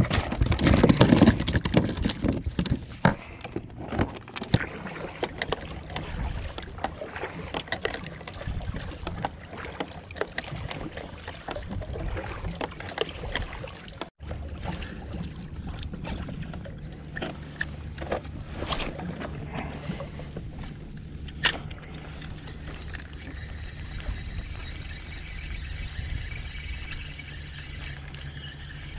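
Clattering and knocking on a kayak as a freshly caught chicken grunt (isaki) is brought aboard, loudest in the first few seconds. It is followed by scattered knocks and clicks of tackle and, from about halfway, a steady low rumble.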